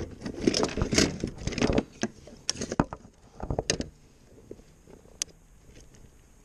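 Handling noise in a kayak: plastic rustling and knocks of fishing gear, busiest for the first two seconds, then a few sharp clicks and a single click later on before it goes quiet.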